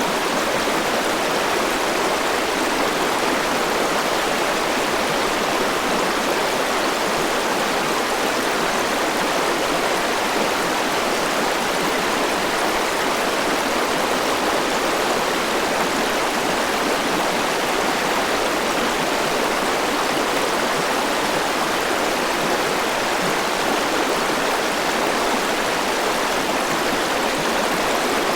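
Forest river rushing over rocks, a steady, even flow of water.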